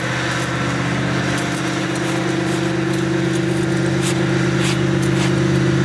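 An engine running steadily at a constant speed. About four to five seconds in come a few short crunching scrapes of rotten wood being picked out of a windmill sail timber.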